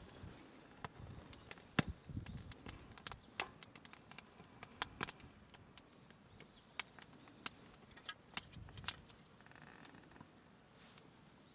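Irregular sharp snaps and clicks of twigs and kindling during fire-lighting, with a few soft knocks of wood being handled in the first few seconds. The snaps thin out near the end.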